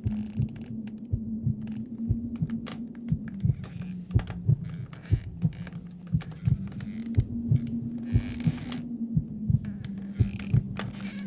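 Homemade horror sound effect: a steady low hum under irregular knocks and thuds. The hum steps down slightly in pitch about three seconds in and back up about seven seconds in. Short patches of hiss come about eight seconds in and again near the end.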